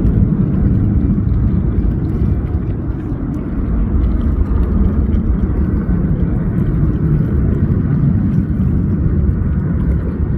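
Airbus A220-300 airliner noise, most likely heard from the cabin: a loud, steady low rumble of engine and airflow noise that holds even throughout.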